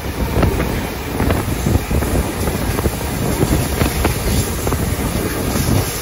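Steady running noise of a passenger train heard from onboard, with wheel-and-rail rumble, irregular clatters and wind buffeting the microphone.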